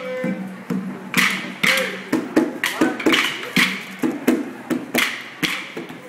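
Maculelê: a group's wooden sticks struck together in unison, sharp clacks in a steady rhythm of about two a second, over music.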